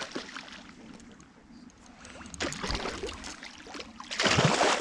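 A hooked salmon thrashing at the water's surface on a fly line, splashing three times: briefly near the start, again about two and a half seconds in, and loudest near the end.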